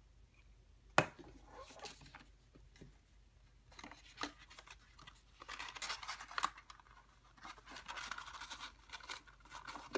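Paper and cardstock rustling and scraping as the pieces are handled, slid and pressed together, with small ticks. A single sharp click about a second in is the loudest sound.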